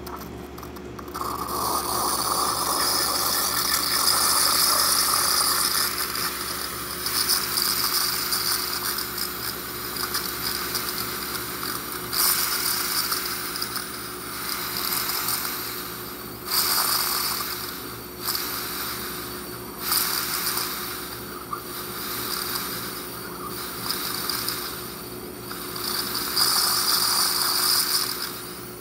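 A Gaggia Titanium espresso machine in steam mode: its vibratory water pump buzzes steadily while the steam wand hisses and sputters in uneven spurts as the thermoblock builds steam pressure.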